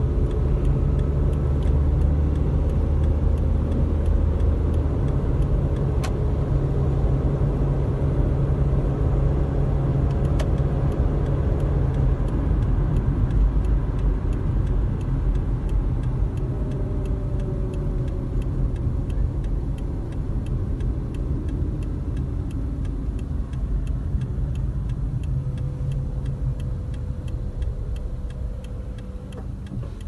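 Toyota sedan engine and road rumble heard from inside the cabin while driving, the engine note shifting as speed changes and easing off near the end. A steady, even ticking runs through the second half: the turn-signal indicator clicking.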